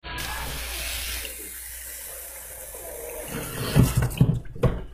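Water running from a kitchen tap into the sink as a steady hiss, then a few loud, dull thumps a little before the end.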